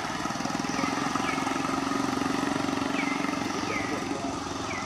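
Engine of a passing motor vehicle, a low steady drone that swells and then fades. Short falling chirps repeat above it.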